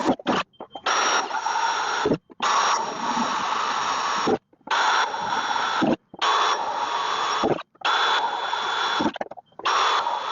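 Electric drill boring pilot holes through sheet-metal trunk floor panel in a series of short bursts, about six of one to two seconds each. The motor's high whine stops briefly between holes.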